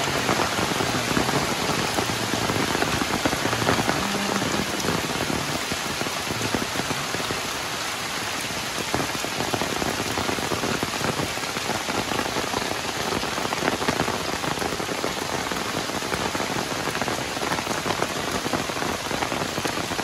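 Steady rain falling: an even hiss made of many small drop impacts that carries on without a break.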